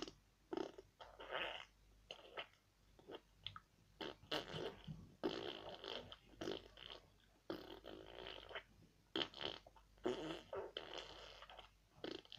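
A girl making silly noises with her mouth and lips, such as blown raspberries: a string of short, irregular bursts with brief pauses between them.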